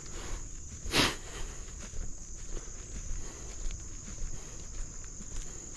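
A steady, high-pitched chorus of crickets and other insects, with the footsteps of someone walking a trail. One louder step or brush about a second in.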